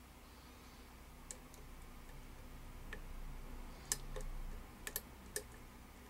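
Small, sharp metallic clicks of a hook pick working the pin stack inside a padlock's keyway under a tension bar: a handful of light ticks, most of them in the second half, as the pick tries to lift the back pin that is holding the lock up.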